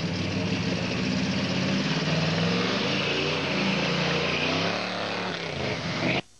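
Pickup truck engine revving hard under load as the truck churns through a mud hole, its wheels spinning and throwing mud. The engine note wavers and falls near the end, then the sound cuts off abruptly.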